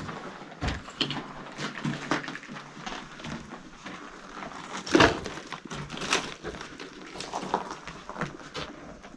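Footsteps crunching and knocking on rubble and loose debris, an uneven walking pace of roughly one step every half second to second, with one heavier crunch about five seconds in.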